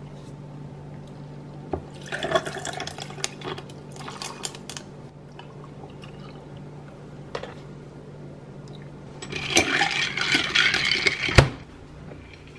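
Iced coffee being made in a glass mason jar: liquid poured over ice cubes, with ice clinking and a metal straw stirring, in two spells, the second louder and ending in one sharp clink. A low steady hum runs underneath.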